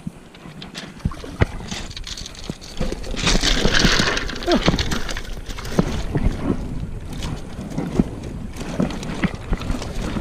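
Shallow water splashing and sloshing as hands work at the edge of a rocky shore, with a louder splash about three seconds in and scattered clicks of stones and gear.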